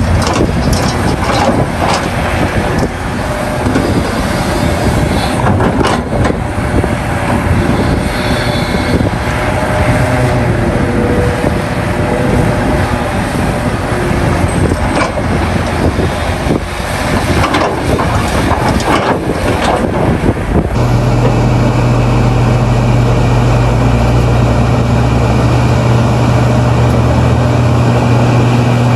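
Heavy diesel earthmoving machinery working, with engines running and scattered knocks and clatter. About two-thirds of the way through, the sound changes abruptly to a steady diesel engine drone.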